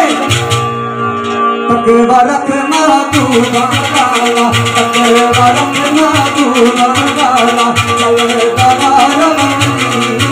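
Live Pothwari sher performance: a man's amplified voice singing over a plucked string instrument, with a steady shaker-like rattle and a regular low beat keeping the rhythm.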